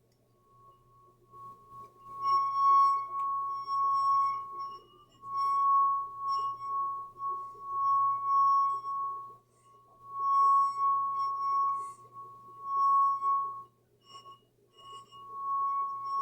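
Stemmed glass with water in it singing as a wet finger is rubbed around its rim: one steady, high ringing tone that swells and fades in about six long stretches with short breaks between.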